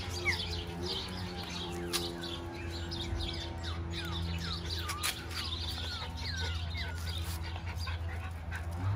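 Birds chirping, with many short, quick falling calls, over soft background music with long held low notes.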